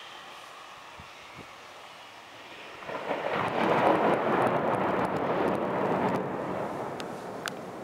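Thunder: about three seconds in, a rumble starts suddenly, swells, holds for about three seconds and then fades away, over a faint steady hiss.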